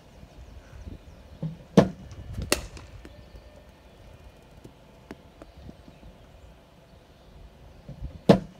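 Sharp knocks of cricket practice against a bowling machine. The first and loudest comes about two seconds in, with a second, crisper crack under a second later as bat meets ball. Another loud knock comes near the end as the next ball is fired.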